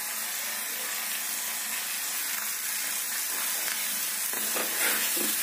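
Marinated chicken pieces sizzling steadily in butter in a pan over a high flame, with a few scrapes of a metal spatula stirring them near the end.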